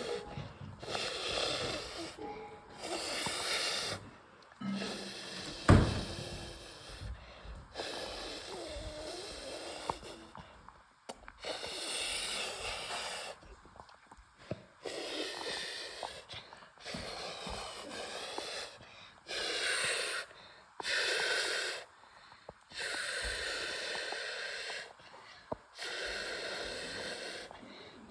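Breathy, noisy sounds in repeated bursts of a second or two with short gaps between, and one sharp thump about six seconds in.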